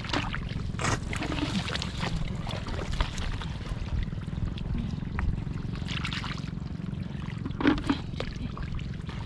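Shallow water splashing and trickling as hands work through it, with a few short, louder splashes about a second in, around the middle and late on, over a steady low rumble.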